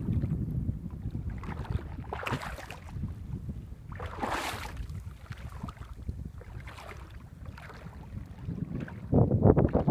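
Wind buffeting the microphone over a steady low rumble from a boat under way on open water, with brief hissing swells of water or wind. The buffeting turns heavy and choppy near the end.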